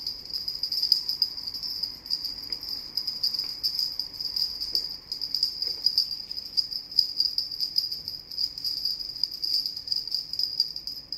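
Two small bells tied on a rope to a cat-toy wand jingling continuously as the toy is jiggled, with many rapid little jangles.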